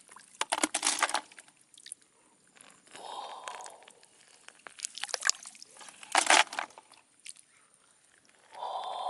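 Water splashing and dripping in short, irregular bursts.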